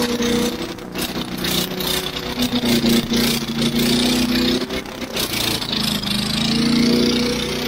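Briggs and Stratton Quantum single-cylinder lawnmower engine running with its fan shroud off, being run hot to overheat it. Its pitch sags about five seconds in and climbs back up.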